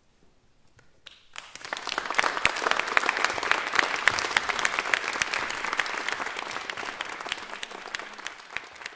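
Near silence, then an audience bursts into applause about a second and a half in, quickly growing to a dense clapping that thins a little near the end.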